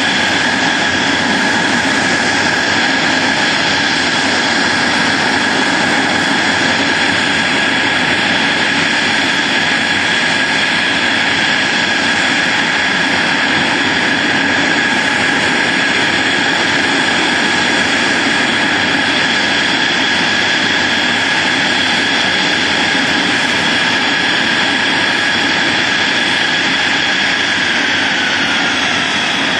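Aircraft turbine engine running steadily at close range: a loud, even rush with a constant high whine. The whine drops slightly in pitch near the end.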